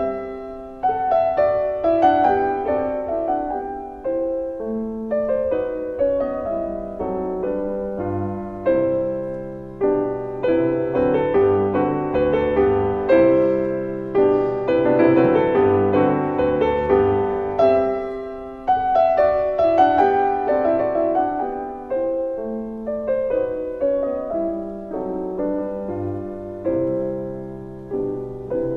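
Piano music playing, individual notes struck and left to fade away one after another.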